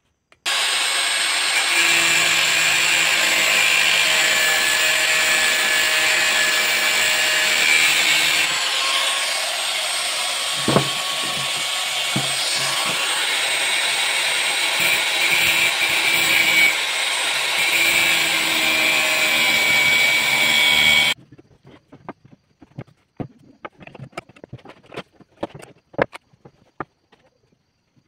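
Electric angle grinder running steadily as it cuts into a wooden chair part, the motor whining under load. It stops suddenly about three-quarters of the way through, leaving light knocks and taps of handling the wood.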